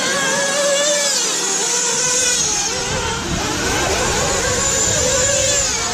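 Several nitro RC car engines revving up and easing off as the cars race around the track, their whining pitches rising and falling over one another. A low rumble joins about halfway through.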